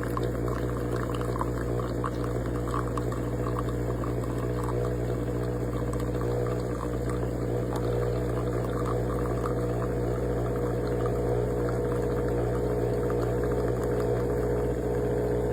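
Gretess capsule espresso machine brewing: its pump hums steadily while coffee pours into the cup, then cuts off suddenly at the end of the programmed small-cup shot.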